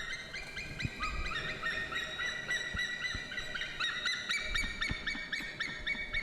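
A flock of flamingos honking, many goose-like calls overlapping in a steady, continuous chatter of short hooked notes, several a second.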